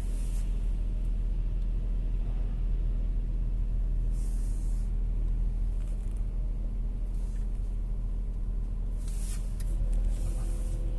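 Volkswagen Touareg engine running with a steady low hum, the hum that varies with revs and is strongest at low revs while the engine is cold; the owner cannot tell whether it is a belt idler pulley or the power steering pump. Short hisses come a few seconds in and again near the end, and about ten seconds in a second, higher hum joins as something switches on.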